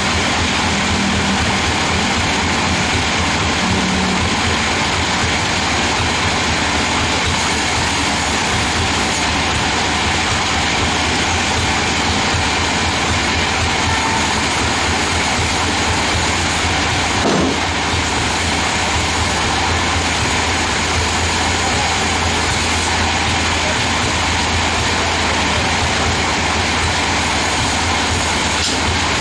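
Sawmill band saw and log carriage running steadily with a fast low rattle while sawing a large mahogany log.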